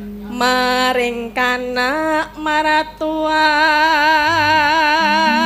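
A female Javanese singer (sindhen) singing solo into a microphone: a few short notes that step upward, then a long held note with a wide, even vibrato. Faint low steady tones sit underneath.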